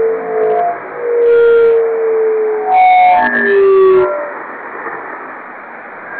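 Electronic noise music synthesized in Max/MSP: a band of filtered hiss with slowly falling held tones over it, swelling in loud bursts about once a second, then dropping to a quieter hiss about four seconds in.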